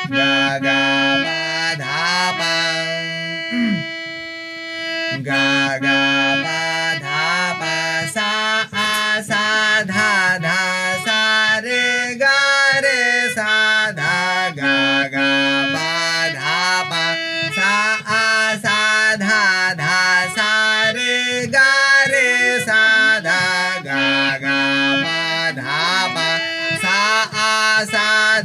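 Harmonium playing a quick melodic line in raag Bhupali over steady held drone notes, briefly settling on long sustained notes about four seconds in.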